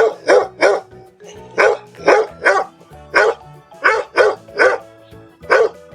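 A dog barking repeatedly, the barks coming in quick runs of two or three about a third of a second apart, with short pauses between the runs.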